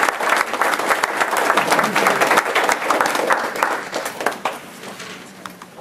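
Audience applauding, many hands clapping, dying away over the last couple of seconds.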